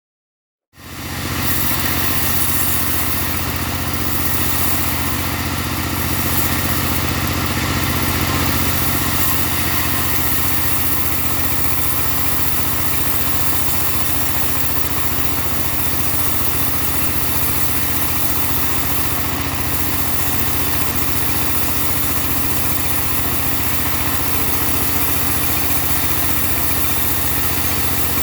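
Engine-driven portable band sawmill running steadily, a constant machine drone. It cuts in abruptly about a second in, after a moment of silence.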